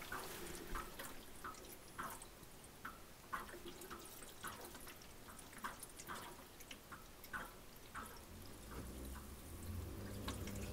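Faint dripping and trickling of water as the dishwasher drains after a cancelled cycle, its water running through the corrugated drain hose into the garbage disposal, with a small drip about every half second to second. A low hum comes in near the end.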